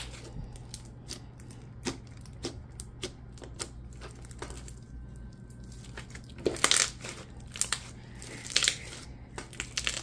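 Glossy clear-and-clay slime with embedded beads being pressed and folded by hand, giving scattered sharp clicks and pops, the loudest clusters about six and a half and eight and a half seconds in.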